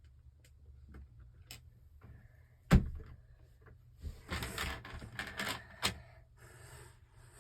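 Plastic Lego pieces being handled: scattered small clicks, one sharp knock a little under three seconds in, then about two seconds of rattling clatter ending in another sharp click.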